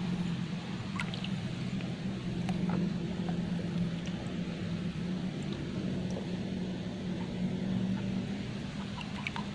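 An engine running steadily, heard as a low, even drone, with a few faint ticks over it.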